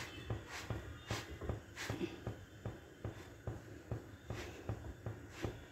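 A folded cotton cloth pressed and dabbed around a jowar roti on a hot tawa, soft rhythmic patting and rubbing about three times a second, pressing the roti so it puffs up.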